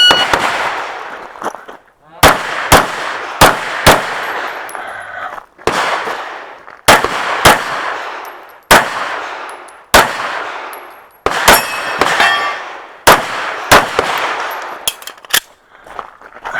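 A competition shot-timer beep, then a handgun fired about eighteen times, many shots in quick pairs, each shot echoing briefly: a shooter running a stage.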